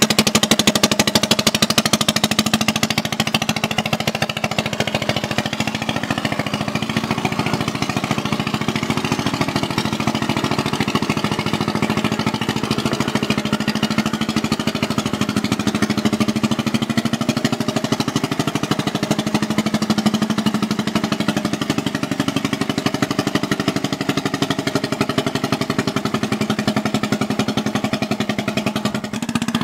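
Single-cylinder diesel engine of a two-wheel walking tractor with steel cage wheels, running steadily with a rapid, even beat while it ploughs wet paddy mud.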